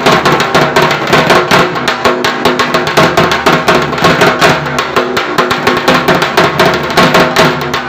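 Dhak, the Bengali barrel drum, beaten with sticks in a fast, driving rhythm of many strikes a second.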